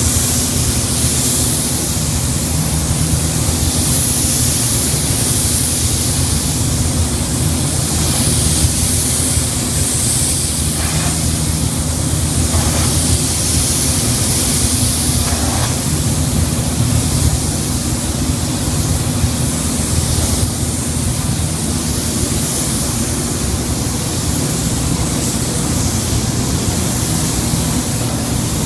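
Gravity-feed paint spray gun hissing steadily with compressed air as it sprays paint onto a car body, over a steady low hum.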